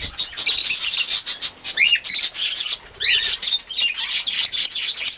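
A flock of pet birds foraging in seeding grass: dense rustling and crackling, with a few short bending chirps about two and three seconds in.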